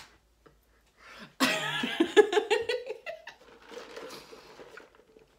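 A woman's short laugh, then faint sipping of an iced coffee through a plastic straw.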